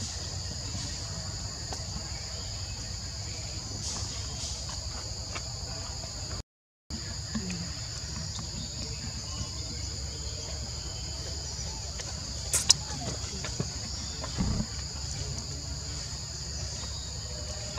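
Steady chorus of insects droning in two high, unbroken bands over a low background hiss. A sharp click about twelve and a half seconds in, and the sound cuts out completely for a moment about six and a half seconds in.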